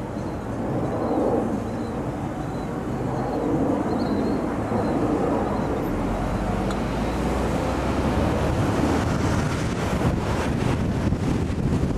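Steady road noise from a moving car with wind rushing over the camcorder microphone. A deeper rumble sets in about halfway through, and the rush turns gustier near the end.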